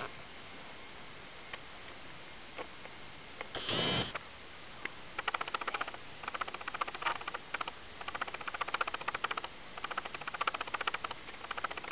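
Video camera's lens motor heard through its own microphone: a short whir about four seconds in as it zooms, then a long run of rapid mechanical ticking that runs for several seconds. The filmer calls these bad noises from a cheap camera.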